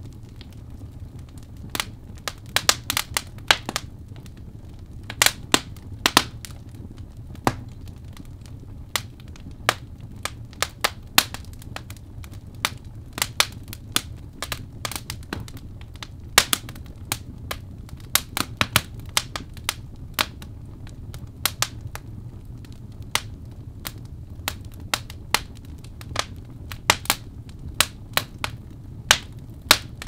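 Birch logs burning in a fireplace, crackling with irregular sharp pops and snaps, some single and some in quick clusters, over a steady low rumble.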